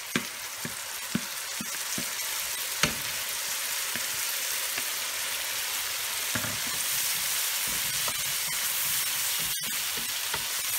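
Mashed taro sizzling in hot oil in a frying pan with fried onions, spices and prawns, stirred with a wooden spatula. It is a steady frying hiss with a few sharp knocks in the first few seconds, and the sizzle grows a little louder in the second half.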